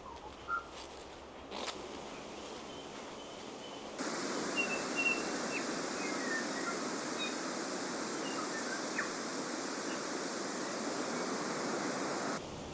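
Bush ambience: a few light steps and short bird notes, then a steady rushing noise with small birds chirping and whistling over it. The rushing noise begins suddenly about four seconds in and cuts off just before the end.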